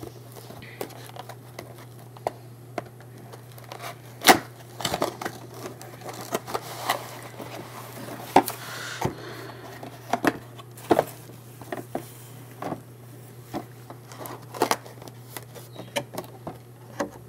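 Cardboard model box and clear plastic blister tray being handled: irregular clicks, taps and crinkles of card and plastic, the sharpest knock about four seconds in, over a steady low hum.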